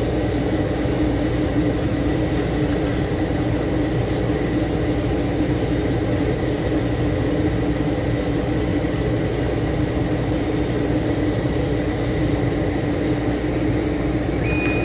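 Thunder Laser Nova 24 CO2 laser cutter running a vector cut at 400 mm/s: a steady machine hum and whir, with a faint, steady high whine over it.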